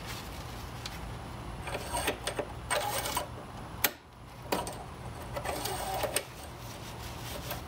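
Metal engine-oil dipstick being wiped with a rag and slid down into its tube and drawn out again, with scraping, rattling rubs and a sharp click a little before the middle as it seats, then a second click and more rubbing as it is pulled out to read the level.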